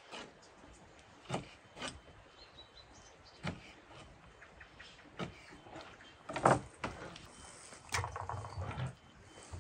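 A few separate knocks and clatters, sharp and irregularly spaced, the loudest about six and a half seconds in and a rattling cluster near the end, with faint bird chirps.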